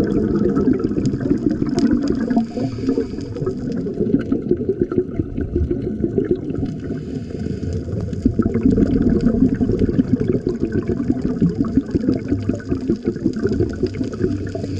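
Underwater sound picked up by a camera in its housing: a continuous muffled rush of water with bubbling, swelling and easing every few seconds.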